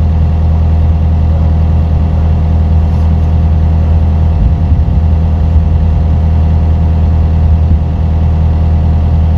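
Digging machine's engine running steadily at idle, a loud, even low drone with no change in speed.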